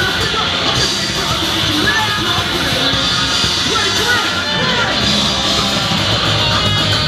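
Loud punk rock band playing, with yelled vocals over the instruments.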